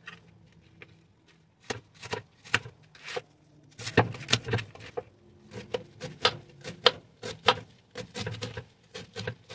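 Knife slicing through raw cabbage and tapping on a thin plastic cutting mat in irregular strokes, starting after a quiet second or so.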